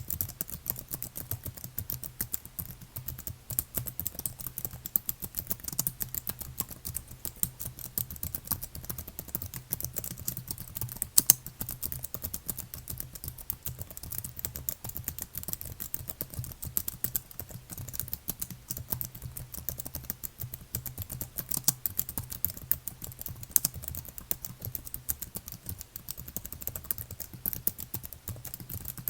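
Continuous typing on a computer keyboard: a dense, unbroken run of key clicks, with one louder key strike about eleven seconds in.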